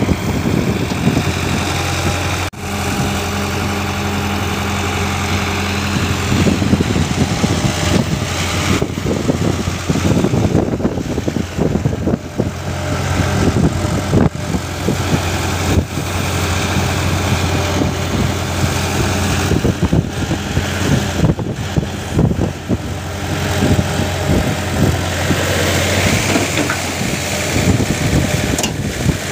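Diesel engines of hydraulic crawler excavators running steadily while a Sumitomo SH120 works to drive out of deep mud with a CAT excavator digging beside it.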